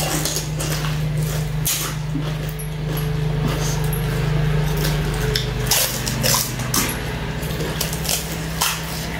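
Crisp pani puri shells being poked open and crunched while eating: a scatter of sharp crackles and clicks over a steady low hum.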